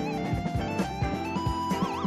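Instrumental background music: a melody of held, bending notes over a steady drum beat.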